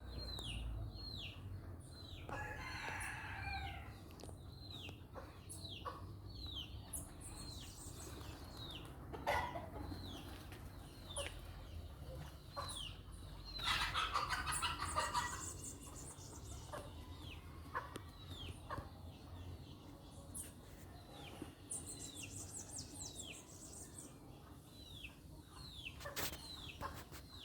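Roosters and hens. Two long rooster crows, one about two seconds in and one about halfway through, over hens clucking. A short, high, falling call repeats steadily in the background, roughly every second.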